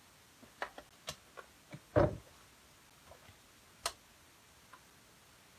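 Scattered light clicks and taps of plastic foil carrier sheets being handled beside a Minc foil applicator on a desk, with a louder knock about two seconds in and a sharp click near four seconds.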